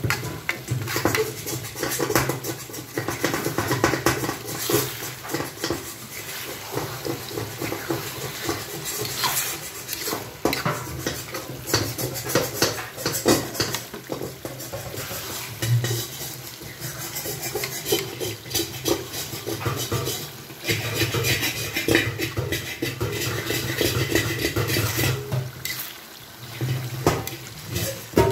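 A spatula stirring thick bagoong paste in a metal pot, with many irregular scrapes and knocks against the pot, over a low steady hum.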